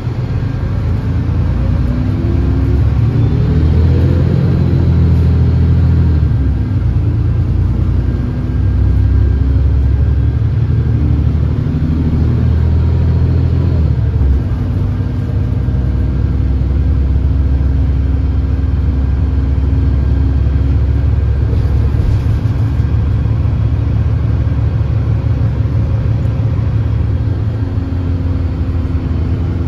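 Bus engine heard from inside the passenger cabin, rising in pitch as the bus accelerates in the first few seconds, then settling into a steady low running note at cruising speed.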